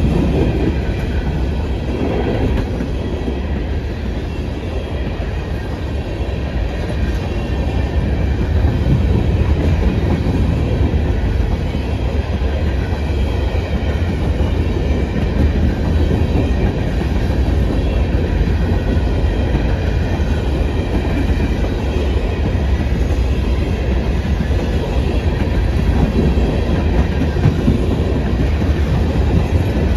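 CN freight train's cars rolling steadily past, a continuous rumble with wheels clicking over the rail joints.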